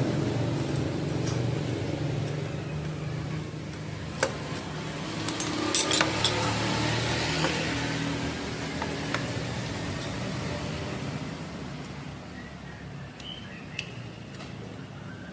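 A few sharp metallic clicks and knocks as a star bolt is undone and a scooter's rear disc-brake caliper is worked loose and lifted off the disc, over a steady low hum.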